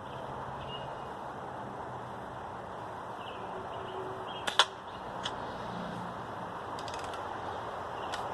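A BB gun firing once, a sharp crack about four and a half seconds in, followed by a fainter click, over a steady background hiss.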